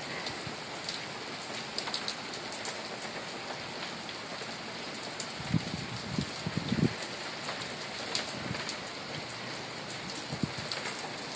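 Steady rain falling in a thunderstorm: an even hiss with scattered sharp drop ticks, and a couple of brief low thumps a little past halfway.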